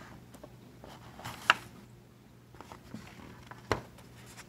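Paper rustling as a hardcover picture book is handled and a page is turned. There is a sharp tap about a second and a half in and another near the end.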